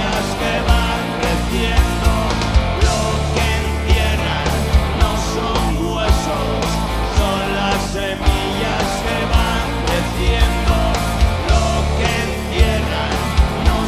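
Live rock band playing at full volume: electric guitars and drums with steady, regular drum hits, and a man singing into a microphone.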